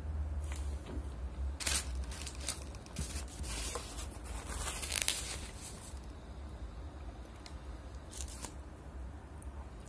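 Paper food wrapper rustling and crinkling as it is handled: a run of short crackles for a few seconds, loudest about five seconds in, then quieter with a couple more near the end.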